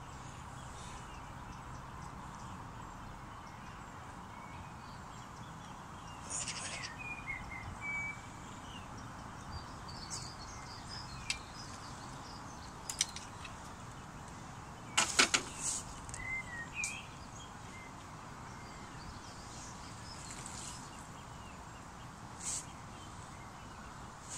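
Steady outdoor background hiss with a few short bird chirps, and scattered clicks and knocks of tackle and landing-net handling, loudest in a cluster about fifteen seconds in.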